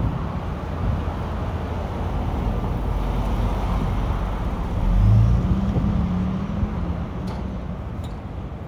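City street traffic noise: a low motor-vehicle engine rumble that swells to its loudest about five seconds in, then eases off, with two light clicks near the end.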